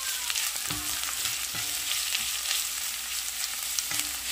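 Sliced onions and ginger sizzling steadily in hot oil in an enameled cast-iron pot, stirred with a silicone spatula that scrapes the pot every second or so.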